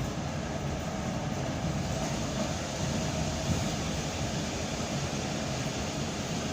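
ED9M suburban electric train running, heard from inside the carriage as a steady rumble and hiss.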